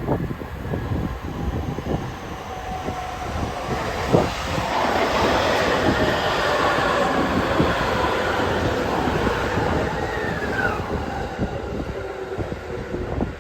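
JR E257 series 5500-number electric limited express train pulling into the station platform: a loud rolling rumble with wheel clatter and a high squeal, and a whine that falls in pitch about ten seconds in as it slows.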